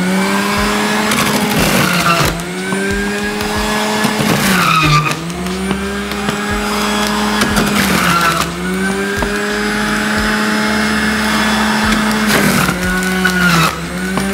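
Electric juicer motor running at high speed with a steady whine. Its pitch sags briefly four times as tomato halves are pushed down onto the spinning blade and load it.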